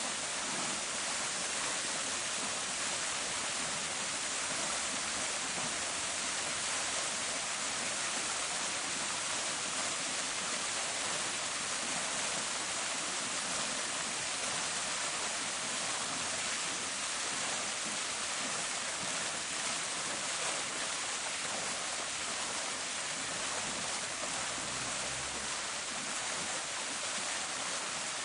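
Park fountain: water splashing steadily into its basin, an even, continuous hiss.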